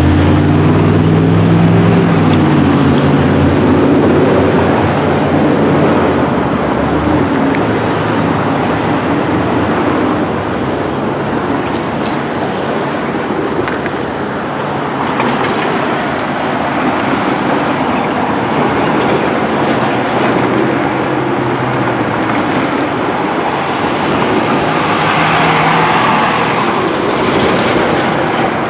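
Steady road traffic noise, with a vehicle's engine going by during the first several seconds.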